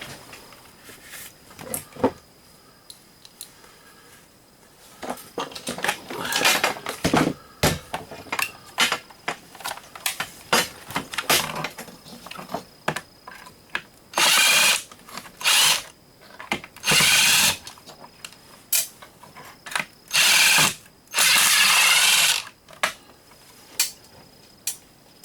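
Power drill run in five short bursts of about a second each, most likely driving out the screws of a plastic surge protector housing. Before the bursts come scattered clicks and knocks of the plastic parts being handled.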